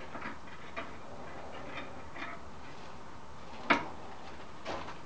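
Aerosol spray can of clear coat being handled: faint light ticks about twice a second over a steady hiss, with one sharp knock about three and a half seconds in.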